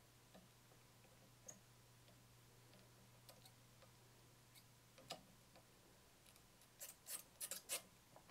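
Small metal tools clicking against the wire terminals of a food mixer's switch during soldering work: scattered faint ticks, then a quick run of about six sharper clicks near the end, over a faint steady low hum.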